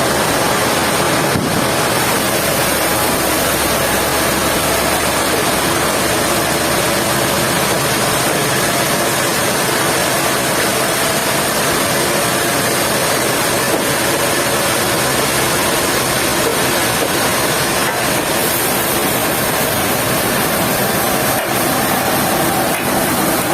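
Sawmill machinery running steadily, a dense even noise with a faint hum underneath.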